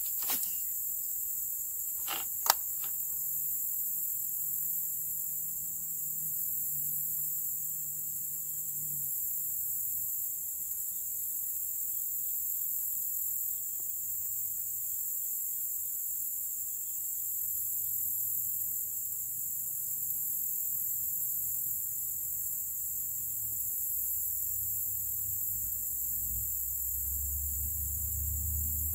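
Steady high-pitched chorus of insects such as crickets, with one sharp click about two and a half seconds in and a faint low hum underneath.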